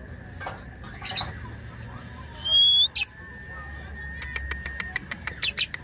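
Caged lovebird calling: a shrill chirp about a second in, a clear rising whistled note around the middle, then a fast run of ticking chirps near the end. It is calling back straight away, a sign that it is in good form and ready to perform.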